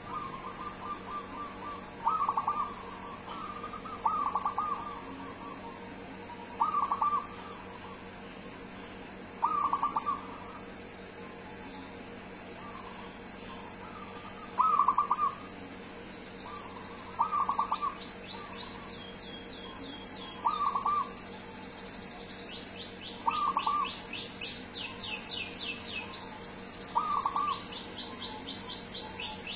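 Zebra dove (perkutut) cooing: a short phrase of quick coo notes about every two to three seconds. From about halfway, a higher-pitched bird's fast series of rising chirps joins in between the coos.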